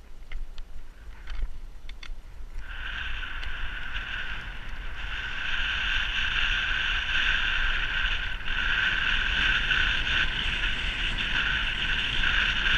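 Wind rushing over a camera on a road bike speeding downhill, starting about two and a half seconds in and growing louder as speed builds. A few faint clicks come before it.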